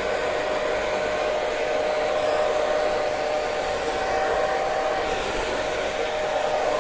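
Hair dryer blowing steadily: a constant rush of air with a steady motor whine.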